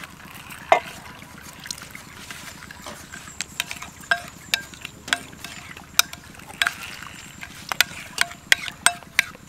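A metal spoon stirring a thick mixture in a glass mixing bowl, tapping and clinking against the glass in scattered, irregular clicks, some with a short ring.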